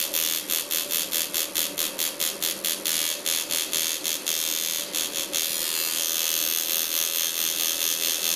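Coil tattoo machine buzzing as its needle works into the skin. The buzz pulses about four times a second for the first five seconds or so, then runs steadier.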